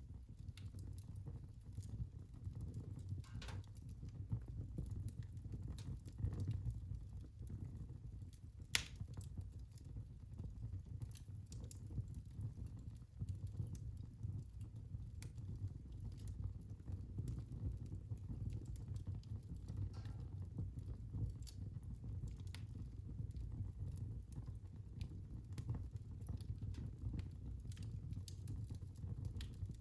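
Wood fire in a fireplace crackling: a low, steady rumble of flame under scattered sharp pops, with one louder pop about nine seconds in.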